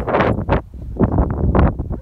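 Wind buffeting the microphone in irregular gusts, with a strong low rumble and rustling bursts.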